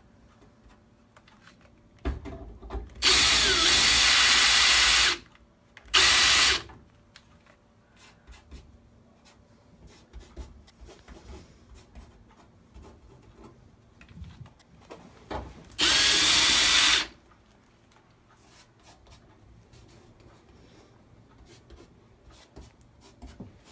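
Electric drill running in four bursts, one short, one about two seconds long, one short and one about a second long, its bit grinding into holes in a TV's sheet-metal back panel. It is countersinking the holes and cleaning off the burrs so the surface lies flat. Light handling ticks come between the bursts.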